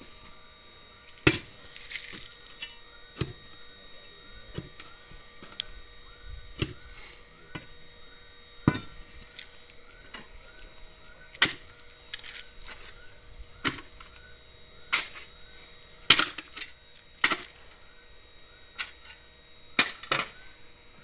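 Firewood being handled and stacked: about fifteen sharp knocks and clacks of logs striking one another at irregular intervals, some of them loud.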